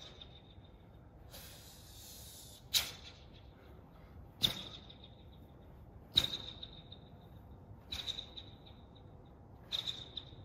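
Sharp snaps of a taekwon-do uniform (dobok) cracking with each fast strike and kick of a pattern, five in all, about every second and a half. Each snap has a short, high ringing echo.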